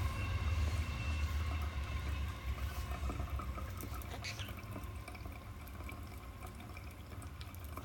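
Water running and trickling, with a low rumble underneath, growing gradually quieter.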